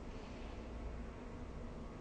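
Faint steady hiss in the lull between a sleeping person's snores, with no snore sounding.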